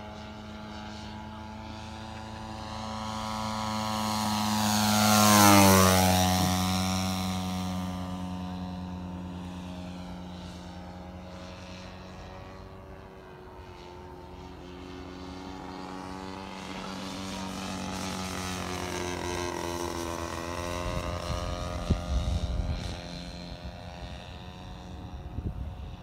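Radio-controlled Ju 87 Stuka model plane flying past: its engine-and-propeller drone swells to a close, loud pass about five seconds in and drops in pitch as it goes by, then builds again on a second, farther pass. Low rumbling thumps of wind on the microphone near the end.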